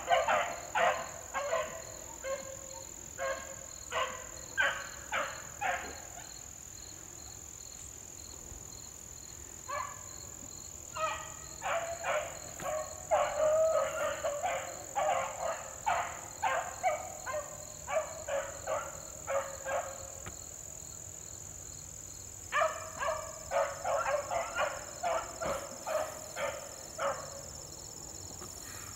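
A pack of beagles baying as they run a rabbit's trail, in bouts of quick bays, about two a second, with lulls of a few seconds between bouts. A steady high insect drone runs underneath.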